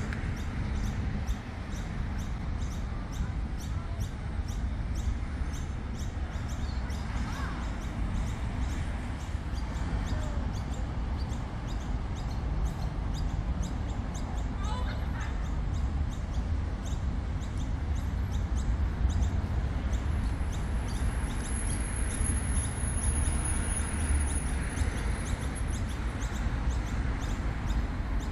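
City park ambience: a steady low traffic rumble from the adjacent street, with a few birds chirping and faint regular ticking. A thin, high, steady whine sounds for several seconds past the middle.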